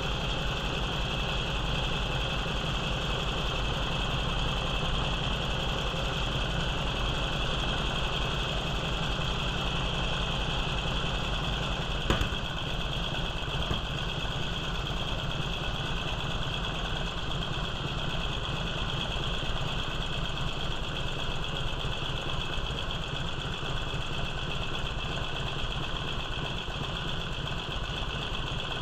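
1946 Indian's flathead V-twin engine idling steadily while its carburetor mixture is being tuned, with one sharp click about twelve seconds in.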